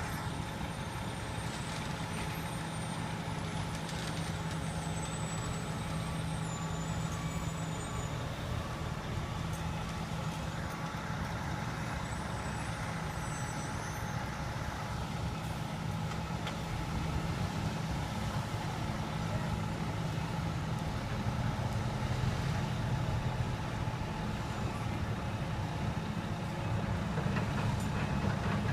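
Transit mixer truck's diesel engine running steadily, growing louder a little past halfway through.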